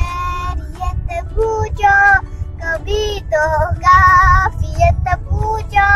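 A young girl singing a song inside a car, in short phrases with several long held notes, one of them wavering about four seconds in. A steady low rumble runs underneath.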